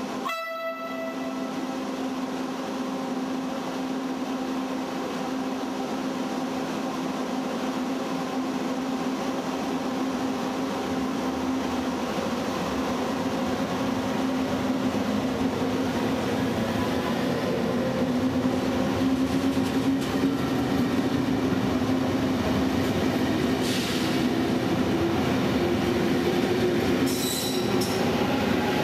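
Malpensa Express electric passenger train moving through an underground station, a steady hum with a tone that slowly rises as it gets under way. Near the end come a few brief high-pitched wheel squeals.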